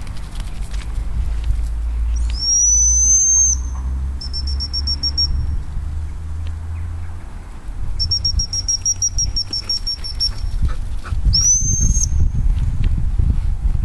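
Gundog whistle: a long blast that rises then holds, a short run of rapid pips, a longer run of rapid pips, then another long rising blast near the end.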